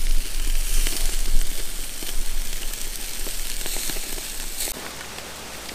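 Hamburger patties sizzling on a gas grill's grates: a steady hiss with small crackles that drops quieter near the end.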